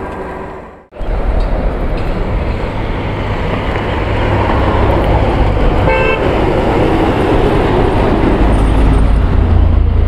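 Roadside traffic: vehicles passing with a steady low rumble that grows louder, and one short vehicle horn toot about six seconds in.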